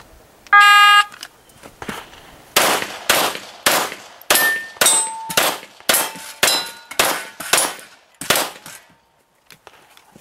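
Electronic shot timer's start beep, then about a dozen rapid pistol shots over some six seconds. Several of the shots are followed by short metallic rings from steel targets being hit.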